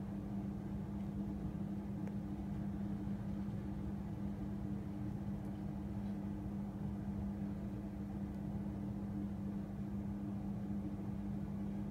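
A steady low mechanical hum with a constant low tone, like a household appliance running.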